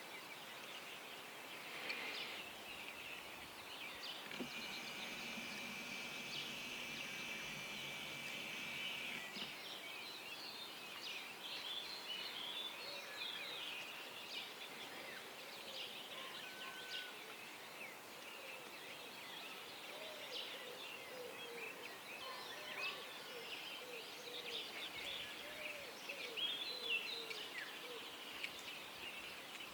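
Dawn chorus of many birds singing, with short chirps and trills throughout. A steady trilling sound runs for a few seconds about five seconds in, and a run of lower repeated calls comes near the end.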